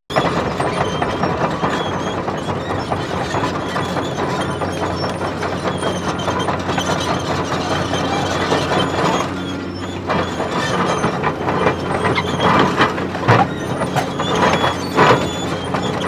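Construction-site machinery noise: a steady mechanical hum under dense clanking and rattling, with a few louder clanks a few seconds before the end.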